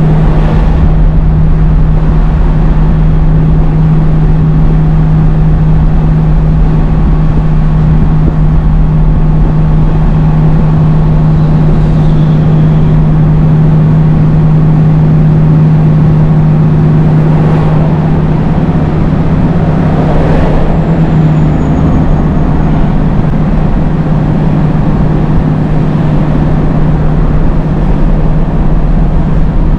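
Scania G500 truck engine droning steadily at constant revs, held in gear on a long downhill descent without foot brakes, heard from inside the cab. A couple of brief swells of passing traffic come and go about two-thirds of the way in.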